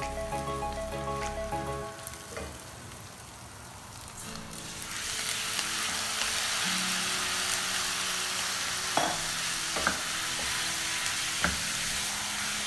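Raw beef strips sizzling loudly in a hot stainless steel pan with sautéed onion and garlic, the sizzle surging about four to five seconds in as the meat goes in. A wooden spoon stirs it, knocking sharply against the pan three times near the end.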